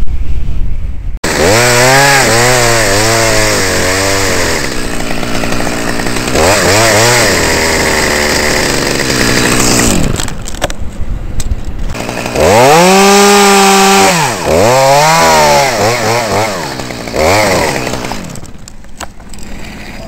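Two-stroke chainsaw engine revving up and down in repeated throttle bursts, starting about a second in, dropping back to a low idle for a couple of seconds midway, then held at high revs briefly before more blips and a fade near the end.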